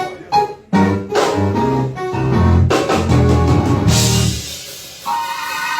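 Live church band playing a praise-break groove: bass and drum hits, a cymbal crash about four seconds in, then a held chord.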